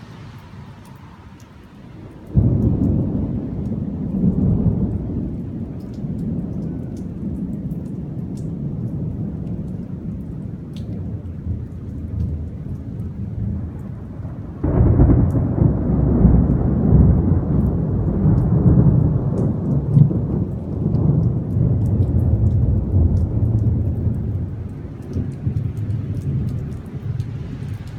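Thunder from an approaching lightning storm: a sudden loud clap about two seconds in that rumbles on for several seconds, then a second, longer clap about halfway through that rumbles until near the end.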